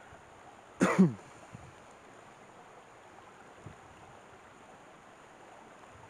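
A man clears his throat once, loudly and briefly, about a second in, over the faint steady rush of a shallow rocky stream.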